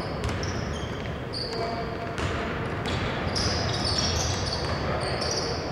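Basketball sneakers squeaking over and over on a hardwood court, with a basketball bouncing and players' voices.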